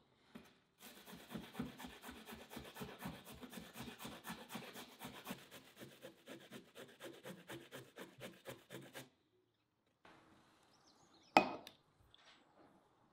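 Beetroot being grated on a metal box grater: rapid, rhythmic rasping strokes, several a second, stopping about nine seconds in. Near the end comes a single sharp knock.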